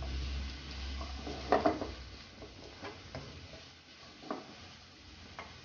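Plastic spatula stirring diced carrots and green peppers in a nonstick frying pan over high heat, with a faint sizzle under it. A cluster of knocks against the pan about a second and a half in is the loudest part, followed by a few lighter taps.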